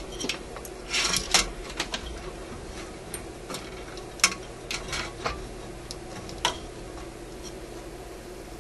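Small clicks, taps and brief scraping as hands handle the magic eye socket and its lead wires on a metal radio chassis. The sharpest click comes about four seconds in.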